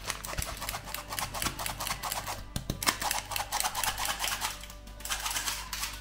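A utensil stirring thick cake batter in a mixing bowl, making quick, rapid clicks against the bowl with a couple of brief pauses.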